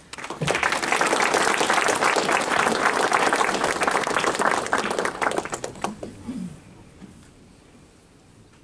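Audience applauding, starting abruptly, holding steady for about five seconds and dying away about six seconds in.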